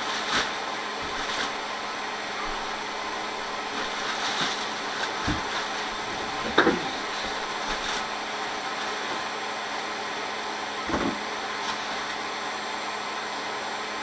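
Small quadcopter hovering, its propellers whirring steadily. Now and then come soft knocks and rustles as food packages are taken out of a box.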